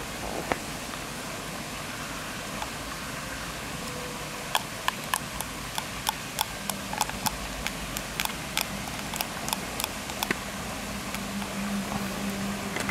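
Plastic spoon clicking against a small plastic cup as it scoops and taps, a run of sharp, irregular clicks about two a second from about a third of the way in until shortly past three-quarters.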